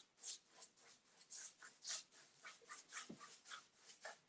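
Faint, quick swishes of a paintbrush stroked back and forth across a rough wooden tabletop, laying on black chalk paint, about three strokes a second.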